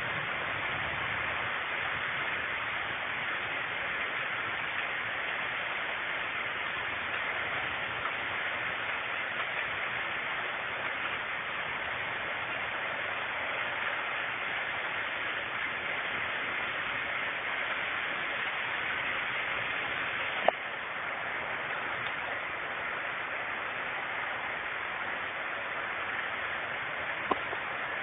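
Steady rain falling in a thunderstorm, an even hiss, with two sharp clicks, one about two-thirds of the way in and one near the end.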